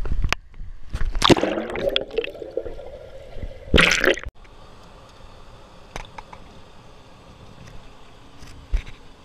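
Pool water splashing and gurgling around an action camera as it dips in and out of the surface, with a muffled pitched underwater sound about a second in and a loud splash near four seconds. After that it cuts off abruptly to a low steady hiss.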